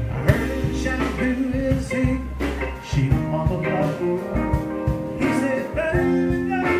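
Live blues band playing: electric guitars over a drum kit with a steady beat.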